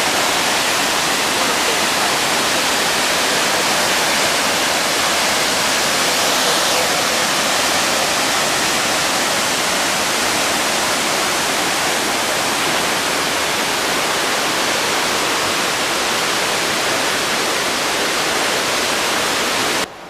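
Victoria Falls in heavy flow: a loud, steady roar of water plunging into the gorge, with no breaks in it. It cuts off suddenly near the end.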